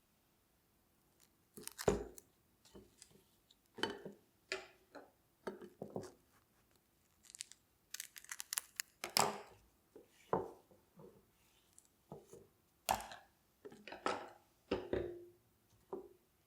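Kitchen food-preparation handling sounds: an irregular series of short crinkling, tearing and crunching noises, a few with a dull thud, separated by brief pauses.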